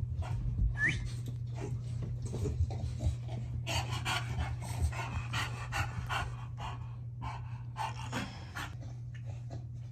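American Bully dogs panting rapidly and steadily, a quick run of breaths that is heaviest in the middle.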